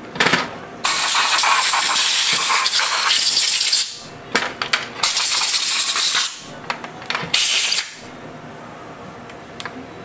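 Compressed-air blow gun blowing through the passages of a Yamaha R6's four-carburetor bank, clearing the cleaned jets and air passages. It comes in loud bursts of hiss: a long blast of about three seconds near the start, then a run of short spurts and two further blasts.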